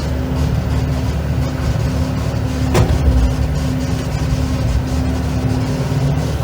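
Hitachi ZX280LC-3 tracked excavator's diesel engine running steadily, a low rumble with a constant hum above it, and one short sharp knock about three seconds in.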